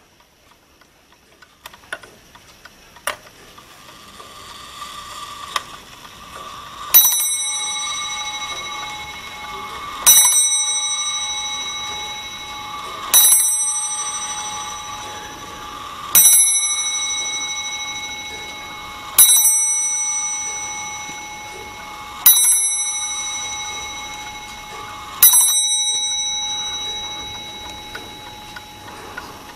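A brass-dialled wall clock striking seven on its bell, one blow about every three seconds, each left to ring out. A few light clicks come first as the hands are moved by hand, and a faint whirr runs under the blows.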